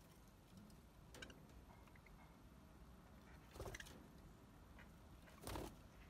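Near silence among perched budgerigars, broken by three short, faint sounds from the birds: a slight one about a second in, then two louder ones past the middle and near the end.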